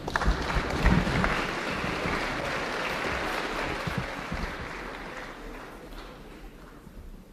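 Concert-hall audience applauding, dying away over the last couple of seconds.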